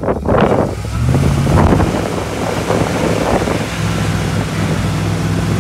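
Dodge Ram pickup's engine running at low throttle as the truck crawls over muddy, uneven ground, with a slight change in engine note in the first couple of seconds before it settles. Wind is buffeting the microphone.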